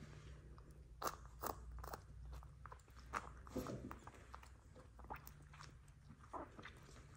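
XL American Bully puppy suckling on a baby bottle's nipple: irregular sucking and smacking clicks, a few closely spaced.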